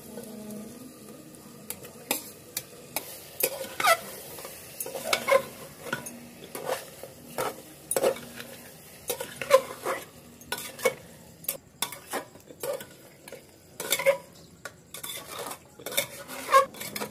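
Metal ladle stirring chicken pieces in masala in a pressure cooker, knocking and scraping against the pot about once a second, with the food sizzling faintly underneath.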